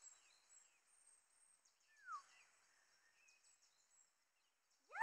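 Near silence: quiet open-air ambience with a few faint, distant bird chirps, one falling chirp about two seconds in.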